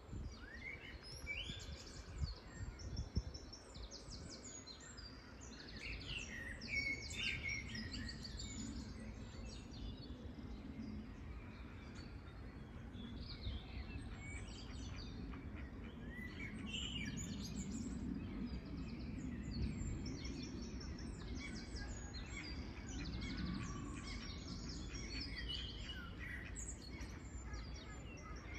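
Several small birds chirping and trilling in quick, overlapping bursts, over a steady low background rumble.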